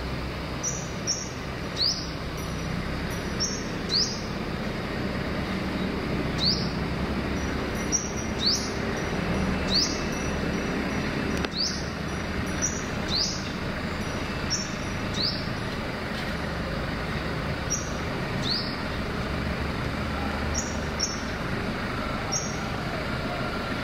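A bird calling with short, sharp rising chirps, about one a second and sometimes in quick pairs, over a steady hum of traffic.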